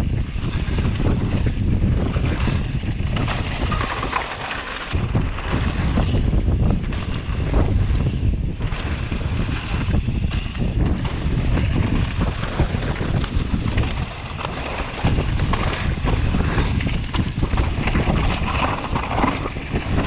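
Wind rushing over the microphone and tyres rumbling on a dirt trail as a downhill mountain bike descends at speed, with frequent knocks from the bike over bumps.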